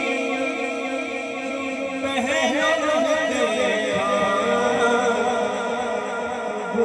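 Devotional naat singing: a male voice holds long, wavering notes over a steady layered vocal hum, with no instruments.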